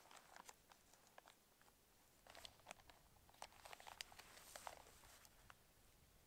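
Faint clicks and scrapes of a spoon working in a food container, bunched in small clusters around the middle.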